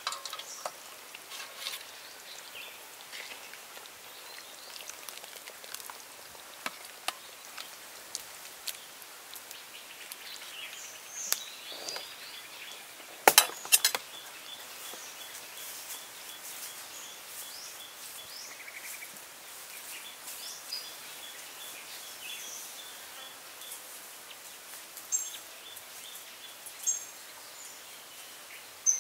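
Outdoor ambience with birds chirping, and scattered clinks of a metal ladle against a wok and steel plate, the loudest a quick pair about halfway through. Short high bird chirps repeat about every two seconds near the end.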